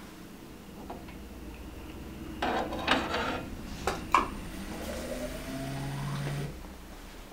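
Glass bottles clinking and knocking on a stainless steel table as they are set in place, loudest about three and four seconds in. Then the iFill filling machine's pump motor starts with a rising whine and runs steadily for about two seconds before cutting off, dispensing silicone oil into a bottle.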